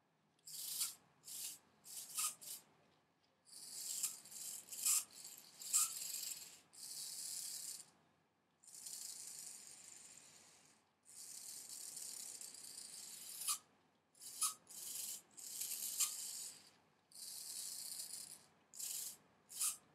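Small motors from cheap toy cars whirring and rattling in stop-start bursts, some short and some lasting a second or two, as they drive a three-motor toothpick robot arm.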